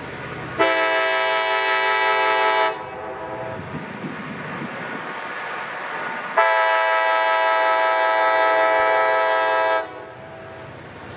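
Diesel locomotive air horn sounding two long blasts, the second longer, each a chord of several steady tones, over the steady rumble of the passing train.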